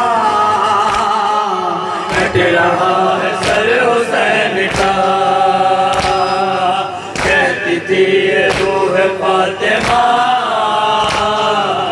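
Group of men chanting an Urdu noha (Shia mourning lament) through a microphone, with sharp, evenly paced matam chest-beating claps about once a second marking the rhythm.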